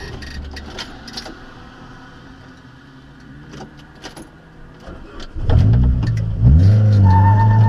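Small clicks and jingling of keys, with the car's engine low, then about five seconds in the Renault Mégane's F7R 2.0 16-valve four-cylinder, fitted with a sports exhaust silencer, comes up loudly and revs, rising in pitch, as the car pulls away again after the spin.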